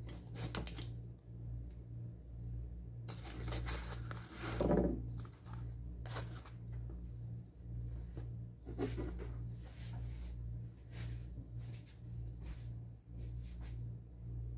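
Scattered clicks, scrapes and rustles of breakfast things being handled at a table (a table knife, a spoon in a ceramic mug, a foil butter wrapper), the loudest a longer scrape about four to five seconds in. A steady low hum runs underneath.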